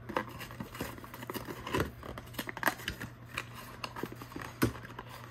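Cardboard and paper packaging being handled: rustling, scraping and clicking as inserts and an inner box are pulled out of a shipping box, with two sharper knocks, one about two seconds in and one near the end.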